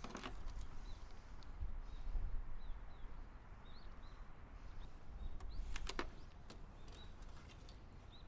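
Short high chirps of a small bird, repeated every second or so, over a low rumble. Sharp clicks come near the start and twice in quick succession about six seconds in.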